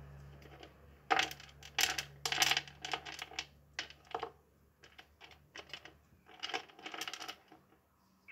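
Syrian hamster rummaging through dry food in a clear plastic dome and crunching it: clusters of crackly crunches and small hard clicks and rattles, starting about a second in and coming in bursts until near the end, over a faint low hum that fades out partway through.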